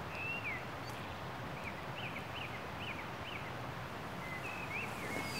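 Open-air background hiss with a small bird chirping faintly: a string of short, high, up-and-down chirps about every half second, with a few more near the end.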